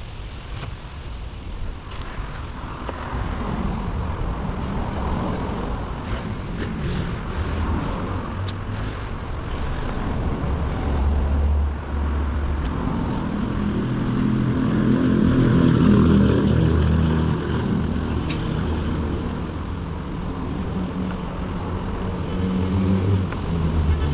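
Engine running with a steady low drone that swells louder about two-thirds of the way through, then eases.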